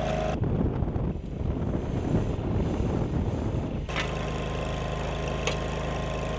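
Engine of a Dingo mini loader running steadily as it drives a post-hole auger into hard, stony ground. For the first half there is a rougher, uneven rumble. A few sharp clicks come in the second half.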